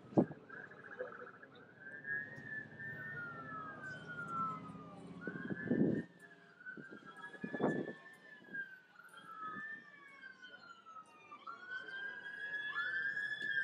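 Emergency vehicle siren wailing, its pitch rising quickly and falling slowly about every two and a half seconds. A second siren overlaps near the end. A single sharp knock comes at the very start, and a couple of duller thuds follow midway.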